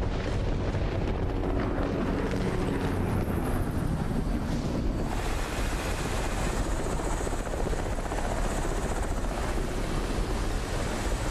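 Helicopter running overhead: a steady, dense rotor and engine noise with no pause.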